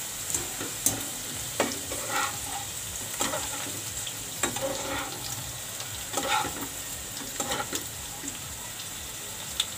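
Okra sizzling in hot oil in a nonstick kadhai, with repeated clinks and scrapes of a steel wire skimmer and spatula against the pan as the half-fried pieces are scooped out.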